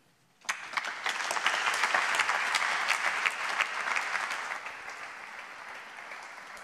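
Audience applauding. The clapping breaks out about half a second in and slowly dies down towards the end.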